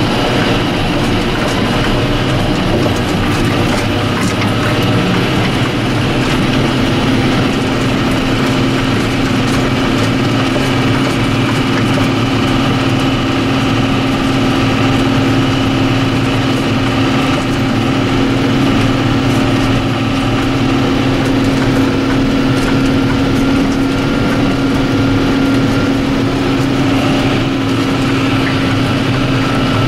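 John Deere 7530 tractor engine running steadily, a constant drone with a faint high whine over it.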